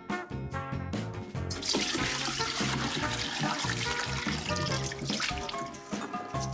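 Icy water with blanched broccoli and green beans poured from a glass bowl into a stainless steel colander in a sink: a splashing rush of water that starts about a second and a half in and dies away about a second before the end, over background music.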